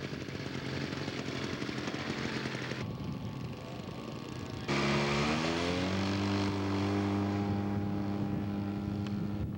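Radio-controlled scale model airplane engine running steadily. About halfway through, the sound switches abruptly to a louder engine that rises in pitch for a second or two, as when throttled up, and then holds a steady note.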